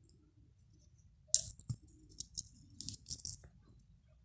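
Hands handling a cotton cloth laid in a strainer: a scatter of short clicks and cloth rustles, the loudest about a second and a half in.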